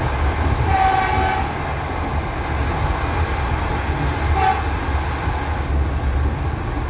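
Steady rumble of a moving train heard from inside the car, with a train horn sounding for well over half a second about a second in and a short toot a little past the middle.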